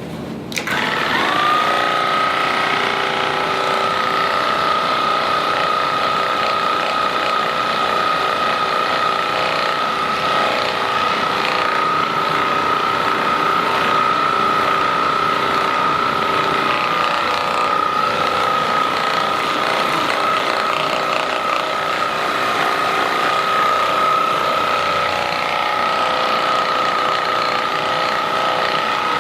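Handheld percussion massage gun switched on about half a second in, its motor spinning up to a steady high whine and then running without let-up.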